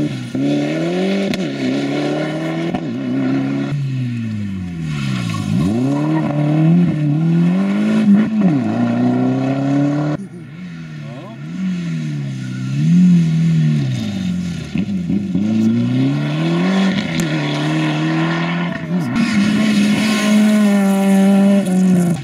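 Rally cars at full attack, including Mitsubishi Lancer Evolutions, several in turn: engines revving hard, with the pitch climbing and dropping again and again through gear changes and braking for corners.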